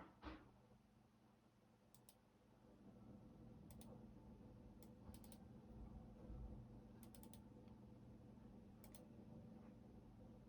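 Faint, sparse computer keyboard typing: a few keystrokes at a time in small groups of two to four taps, with pauses of a second or more between them, over a low steady hum.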